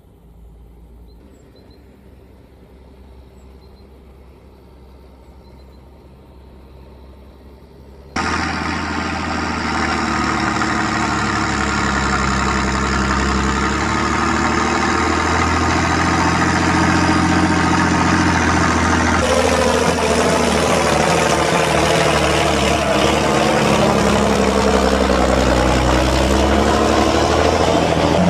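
Fendt Favorit 614 LSA tractor's diesel engine running under load while pushing a grading box of soil along a dirt road. It is faint and distant for the first eight seconds, then suddenly loud and close, and its note wavers in pitch as the tractor comes near.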